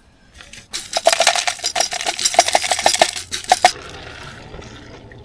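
Camping gear being handled: a quick run of clinks, rattles and rustling lasting about three seconds, with some light metallic ringing, stopping suddenly, then a faint steady hiss.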